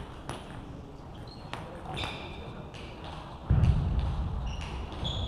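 Scattered sharp clicks of celluloid table tennis balls striking tables and bats at play around a sports hall, with short high shoe squeaks and voices in the background. A low rumble comes in about three and a half seconds in.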